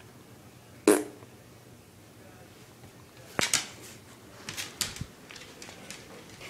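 A husky stirring and getting up right beside the microphone on a hard floor: one sharp knock about a second in, then a quick cluster of clicks and knocks a few seconds later.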